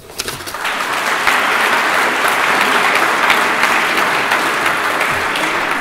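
Audience applauding, the clapping building up within the first second and then holding steady.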